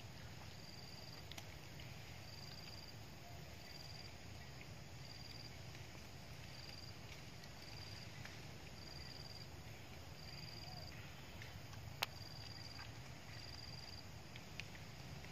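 An insect chirping in a regular rhythm of short, high-pitched chirps, a little more than one a second, over a steady low rumble. A single sharp click stands out about twelve seconds in.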